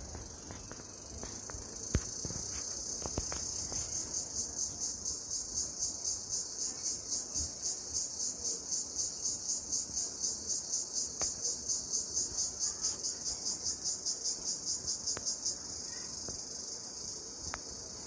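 High-pitched insect chorus in tropical forest, with one insect's loud pulsing call (about three pulses a second) starting a couple of seconds in, swelling, and cutting off abruptly near the end. A single sharp click about two seconds in.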